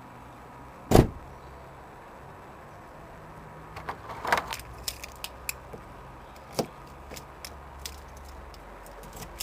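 Lock picks working in a Renault Scenic's car door lock: small metallic clicks and scrapes, busiest about four to five seconds in, with one loud sharp clunk about a second in.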